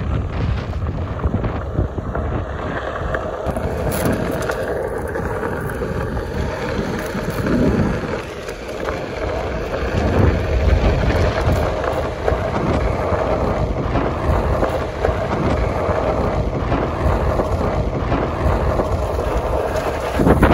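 Riding an electric Onewheel over a dirt path: wind rushing over the phone's microphone and the board's tyre rolling over the dirt, with a steady hum underneath.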